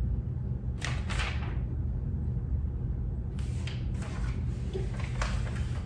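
Stool parts being handled: several brief scraping, rustling sounds, one about a second in and a few more in the second half, over a steady low hum.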